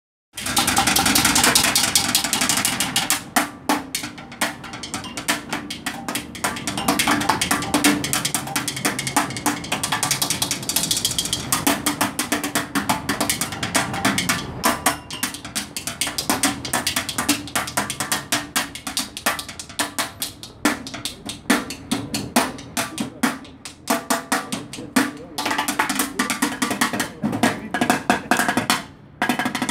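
Drumsticks played fast and continuously on an orange plastic street litter bin: a dense run of rapid strikes over a steady hollow ring from the bin's body, breaking off briefly near the end.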